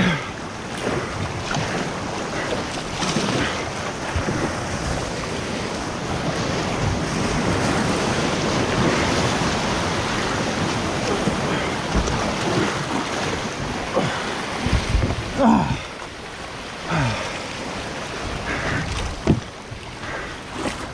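Ocean surge rushing and foaming around a sit-on-top kayak in a narrow rocky gully, with wind buffeting the microphone. The rush eases about three-quarters of the way through, and a few dull knocks stand out near the end.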